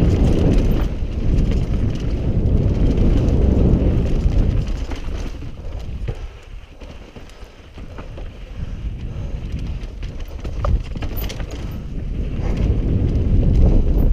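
Mountain bike descending a steep, rutted, sandy dirt trail: wind buffeting on the rider's camera microphone over tyre rumble and scattered rattles and clicks from the bike. It eases off about halfway through, then builds again near the end.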